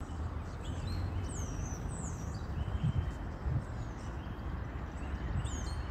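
Birds calling in the trees: a few short, high, falling chirps over a steady low rumble.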